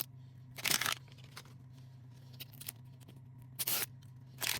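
Crinkly plastic blind-box wrapper being handled and torn open, heard as a few short rustling rips with small clicks in between, over a faint steady hum.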